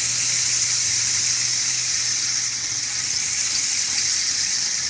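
Rain stick turned over: a steady, even hiss of pebbles trickling down through the tube, like falling rain.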